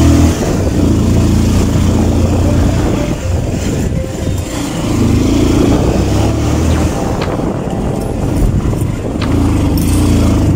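Motorcycle engine running while riding over a rough dirt track, its note rising and falling with the throttle over a steady rush of noise, with a few sharp knocks near the end.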